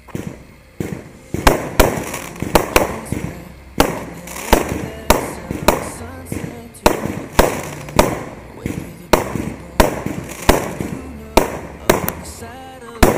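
Aerial fireworks going off in a steady barrage: sharp bangs roughly every half second to a second, each trailing off into an echo.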